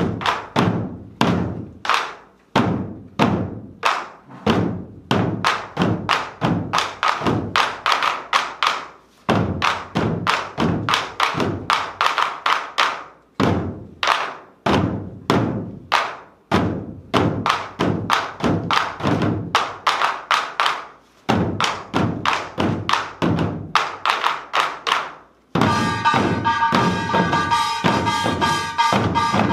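Several Korean buk barrel drums struck with sticks in unison, in fast rhythmic phrases broken by short pauses. Near the end a small hand gong (kkwaenggwari) joins in, ringing metallically over the drumming.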